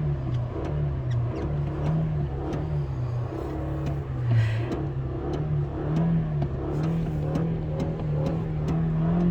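Car engine running and being revved up and down repeatedly while still cold, to warm it up and melt the ice off the car.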